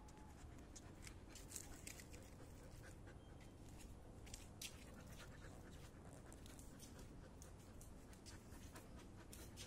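Quiet dog panting close by, with a few short, soft clicks scattered through it.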